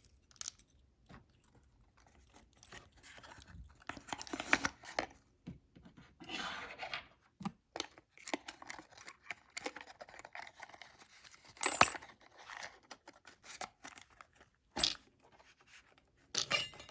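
Hands handling a padlock and its keys: scattered clicks, scrapes and rustles, with a few sharp metallic clicks, the loudest about twelve seconds in.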